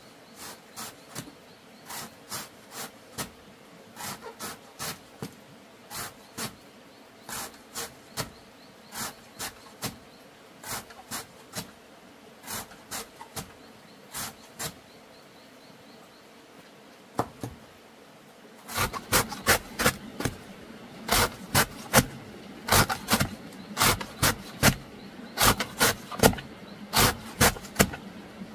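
Repeated sharp knocks, two or three a second at an uneven pace. They are fairly faint at first and become much louder about two-thirds of the way in.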